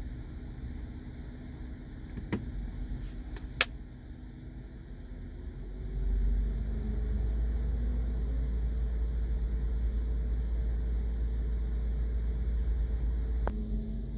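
BMW B58 3.0-litre turbocharged inline-six idling after a fresh oil change, a steady low rumble that grows louder about six seconds in and holds there. Two sharp clicks come in the first few seconds.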